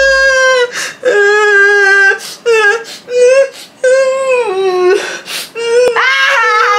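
Exaggerated, theatrical crying in a high falsetto voice: long drawn-out wails broken by gasping inhales. Near the end it cuts to a loud, drawn-out laugh.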